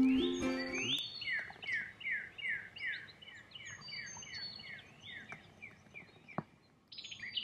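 Ukulele music fading out about a second in, then a songbird singing a rapid series of down-slurred chirps, about three a second, with more bird calls near the end.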